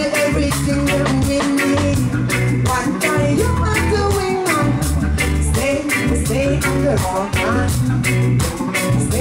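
Live reggae band playing, with a woman singing lead over a deep bass line and a steady drum beat.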